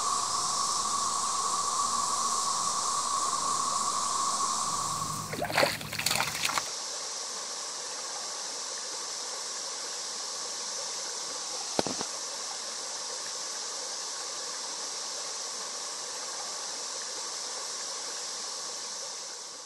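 Shallow stream running over rocks, a steady rushing wash. Brief splashing about five to six seconds in, after which the water sound continues a little quieter, with one sharp click around twelve seconds in.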